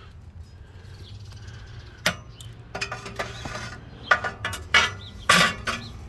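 Metal log grate clanking and clinking against the steel firebox of a propane-tank wood stove as it is set back in place: a string of sharp knocks starting about two seconds in, the loudest near the end.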